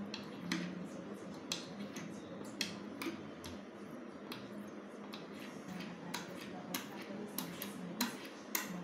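Small magnet rubbed along a steel sewing needle, giving irregular light clicks and scrapes as the metal pieces strike and slide against each other, over a faint steady low hum.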